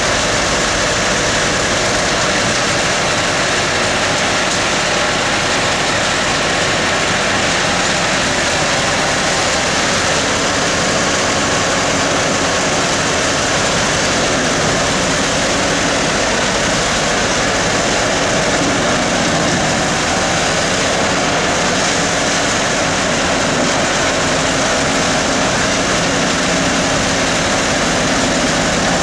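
Jenz AZ660 wood grinder running under load on its Mercedes 625 hp V8 diesel, mixed with the diesel of a Hitachi Zaxis 170W wheeled excavator feeding it green waste. The noise is loud and steady throughout.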